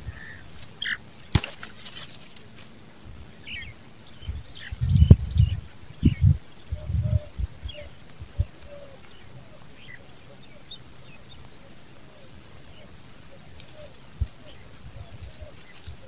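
Pipit nestlings begging for food as a parent comes to the nest: a fast, unbroken stream of thin, high chirps that starts about four seconds in, with a few dull thumps soon after it begins.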